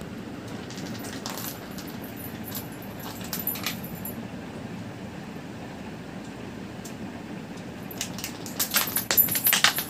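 Small plastic ludo pieces clicking and skittering on a concrete floor as a kitten bats them: scattered light clicks, then a rapid clatter of clicks near the end, over a steady low hum.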